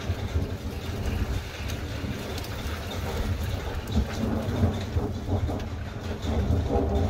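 Continuous low rolling thunder over steady rain, the rumble swelling near the end, with a few sharp drop ticks. It is the non-stop thunder that is characteristic of a hailstorm.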